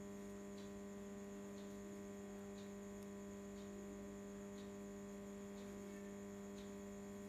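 Steady electrical mains hum, a low buzz with overtones, with faint ticks about once a second.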